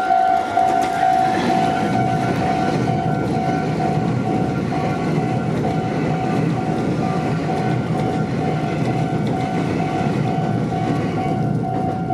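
Level crossing warning bell sounding a repeating electronic ding about twice a second while a Meitetsu Nagoya Main Line train passes over the crossing, its wheels on the rails making a steady rumble that thins out near the end.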